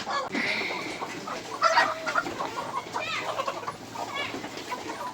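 A flock of chickens clucking and calling in short overlapping calls, loudest about two seconds in.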